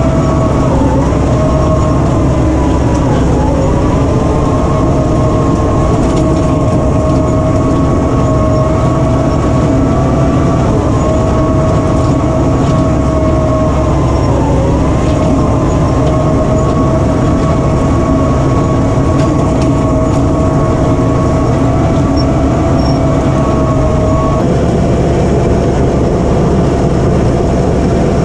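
Cat D8K bulldozer's diesel engine running hard under load with a steady whine over the rumble. The pitch dips briefly a few times as the engine is pulled down while the blade pushes snow.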